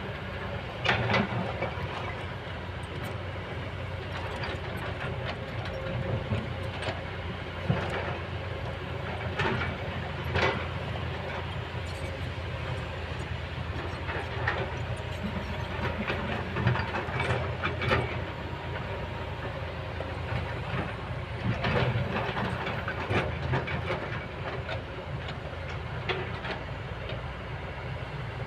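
Kobelco excavator's diesel engine running steadily under load, with irregular loud clanks and scrapes of working machinery throughout.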